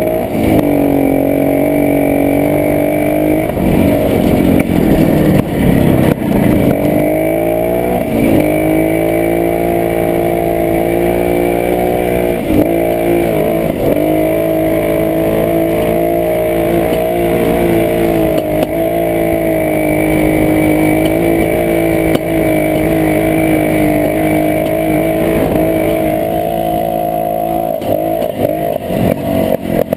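Jawa 250 two-stroke single-cylinder motorcycle engine running under way, its revs dipping and picking up again several times: around four to seven seconds in, about twelve seconds in, and again near the end.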